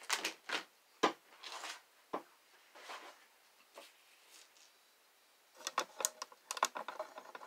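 A sheet of cut adhesive vinyl being peeled off a sticky cutting mat and handled: a few light crackles and taps, a quiet spell, then a cluster of clicks and rustles near the end.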